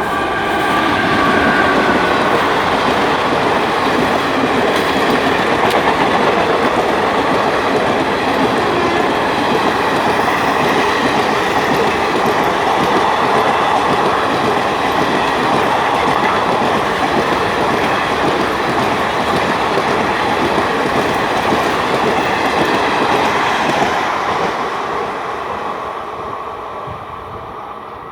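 Indian Railways train hauled by a WAP-4 electric locomotive passing at high speed: the horn dies away in the first couple of seconds, then a loud, steady rush of wheels on the rails that fades over the last few seconds as the train goes by.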